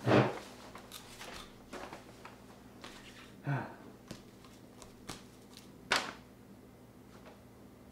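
Handling sounds at a table: a heavy thump right at the start as someone sits down, then scattered light knocks and clicks, another thump about three and a half seconds in, and a sharp click about six seconds in.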